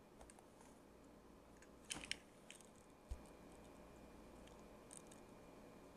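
Near silence, broken by a few faint clicks and taps about two seconds in and a soft knock near three seconds: a cardboard trading-card box being handled.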